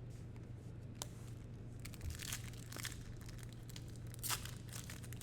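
Sports card pack wrappers being torn open and crinkled: a scatter of short crackles and rips.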